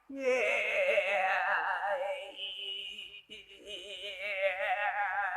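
A voice singing sustained notes in an operatic style with a heavy, wavering vibrato, breaking off briefly about three seconds in before going on.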